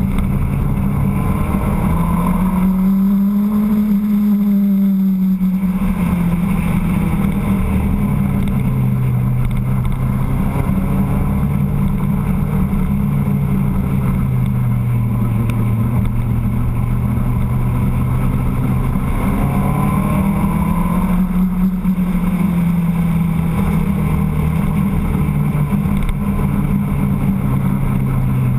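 Motorcycle engine running under way, its pitch rising twice as it picks up speed, a few seconds in and again about twenty seconds in, and settling lower and steady in between.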